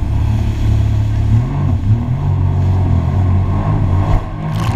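Jet ski engine running, its pitch wavering up and down as the throttle changes, with a short hiss near the end.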